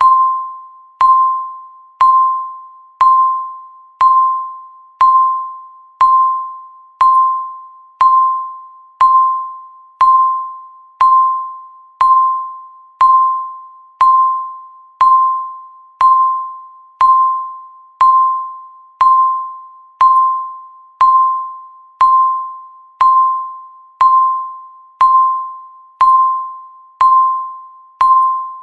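Countdown timer's tick sound: a single clear chime-like tone struck once every second, each strike ringing out and fading before the next, marking the seconds of the count.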